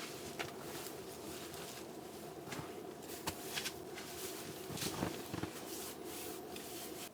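Scattered small knocks, clicks and rustles of things being handled, over a steady background hiss; the background drops away suddenly near the end.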